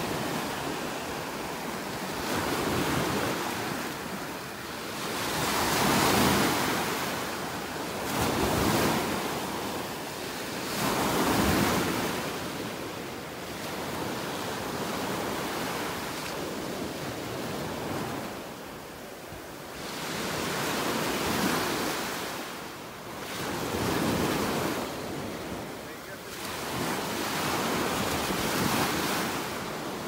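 Gulf of Mexico surf breaking and washing up on a sandy beach, each wave swelling and fading every few seconds.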